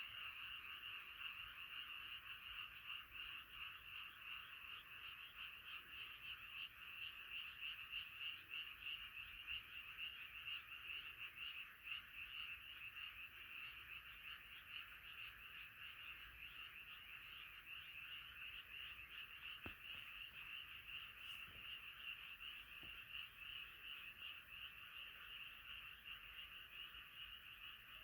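Chorus of many frogs calling together in one dense, unbroken din.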